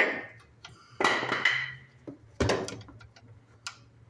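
Two sharp knocks about two and a half seconds apart, with a scraping noise between them, as a block of wood is worked into place under a pickup's engine bell housing.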